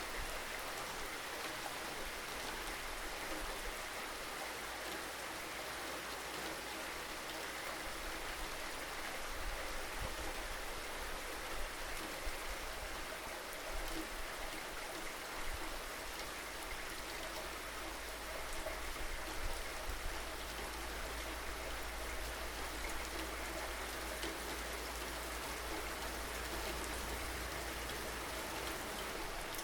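Steady rain falling, with scattered drops ticking on surfaces and a low rumble underneath that grows stronger about a third of the way in.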